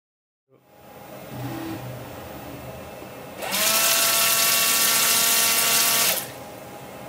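Car windscreen washer nozzle spraying, driven by a small electric pump. About three and a half seconds in, the pump's motor whines up to a steady pitch with a loud hiss of spray, then cuts off about two and a half seconds later. A quieter steady mechanical hum runs before and after.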